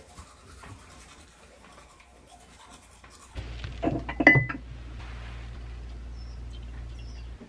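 Teeth being brushed with a manual toothbrush, quick scratchy scrubbing strokes. About three seconds in this gives way to a ceramic mug and teapot clinking together, one clink ringing briefly, over a steady low hum.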